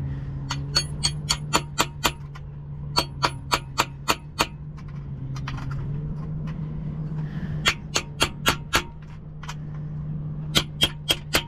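Hammer striking a punch to drive pop rivets out of an aluminium boom gooseneck fitting: quick runs of sharp metallic taps, about four a second, several times over. A steady low hum runs underneath.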